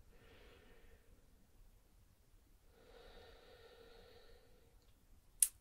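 Soft, slow breathing close to the microphone: two long breaths, then a single sharp click near the end.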